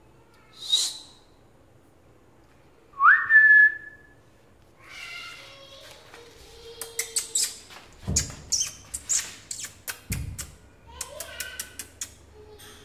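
A person whistles once to call a cat: a single note that slides quickly upward and is then held briefly. A run of short clicks follows in the second half.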